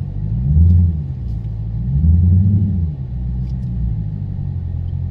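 Supercharged 6.2-litre Hemi V8 of a Jeep Grand Cherokee Trackhawk heard from inside the cabin: a steady low drone that swells twice under throttle, rising and falling in pitch, briefly about half a second in and longer around two seconds in.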